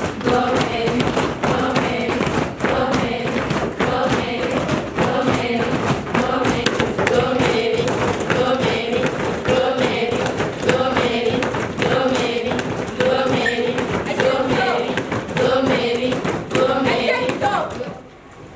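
A group of voices singing or chanting together, held notes carried throughout, with many thumps and taps mixed in.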